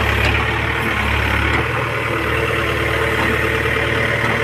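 Case 851EX backhoe loader's diesel engine idling steadily.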